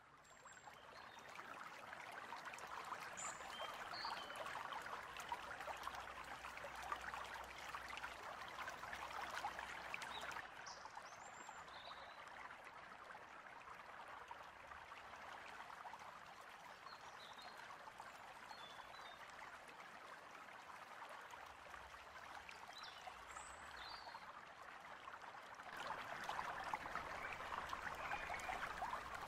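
A stream running with a steady trickling rush, fading in over the first couple of seconds and growing louder near the end. A few short, high bird chirps come through now and then.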